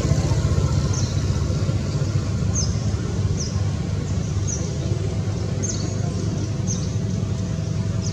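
Steady low outdoor rumble, with a small bird's short, high, falling chirps repeating about once a second.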